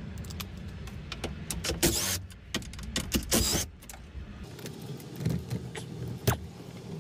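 Hand tools clicking and clinking on metal while the steering-column bracket bolts are worked loose, with two short rasping bursts of a ratchet or tool turning, about two and three and a half seconds in.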